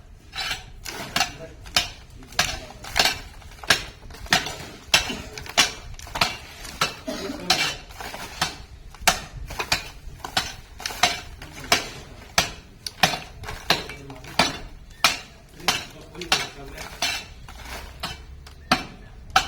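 Mason's steel trowel working mortar and bricks during wall building: a steady run of sharp metal scrapes and clinks, about one or two a second.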